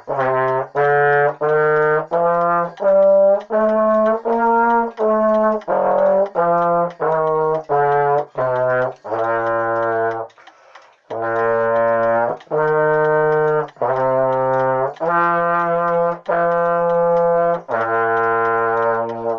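Yamaha trombone playing a slow B-flat concert scale: separate tongued notes climbing step by step, then falling back down, followed after a short break by several longer held notes. The player says the instrument needs to be tuned.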